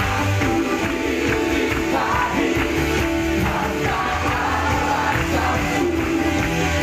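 Band music from a pop-rock worship song, with a steady bass line under sustained chords.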